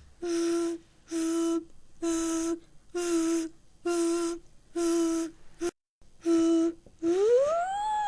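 Fire alarm going off: a pitched electronic tone beeping about once a second. Near the end it switches to a siren tone that rises in pitch.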